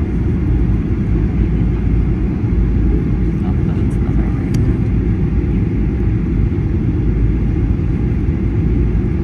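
Inside the cabin of a Boeing 737-800 on approach: a steady, deep rumble of its CFM56 jet engines and the airflow over the fuselage, heard from a window seat beside the wing.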